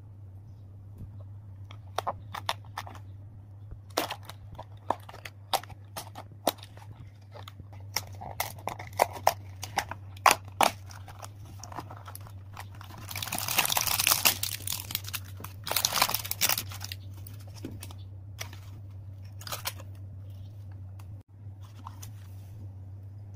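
Packaging being handled: a cardboard candy-kit box opened and a plastic-wrapped mould tray and foil snack packets taken out. Scattered sharp taps and clicks of cardboard and plastic, then a couple of seconds of louder plastic crinkling a little past halfway, over a steady low hum.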